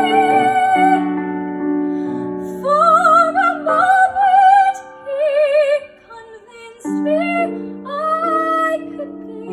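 Woman singing a musical-theatre ballad with vibrato into a microphone, over piano accompaniment. A held note ends about a second in, the piano carries on alone briefly, then sung phrases return; the voice drops out again about six seconds in and comes back a second later.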